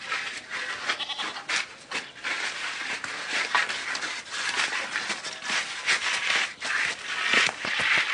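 Domestic goat bleating over and over in rough, wavering calls.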